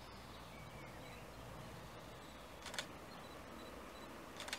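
Two short sharp camera shutter clicks about two seconds apart, over quiet outdoor background noise.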